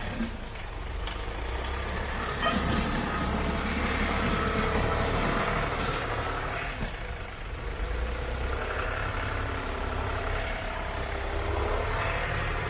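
Compact diesel tractor running steadily while working its front loader, with a faint whining tone near the end.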